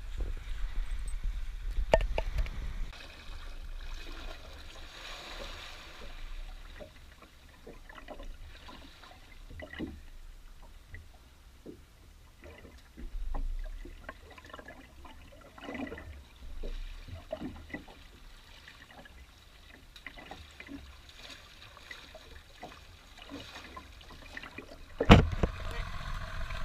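Water lapping and splashing irregularly against a small boat, with wind buffeting the microphone in the first few seconds and one sharp knock about 25 seconds in.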